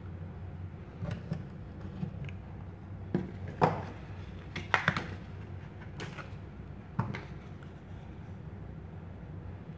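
Handling noises of sandpaper, wooden blocks and a plastic glue bottle on a tabletop: a scatter of short knocks and rustles, the loudest about a third of the way in, over a steady low hum.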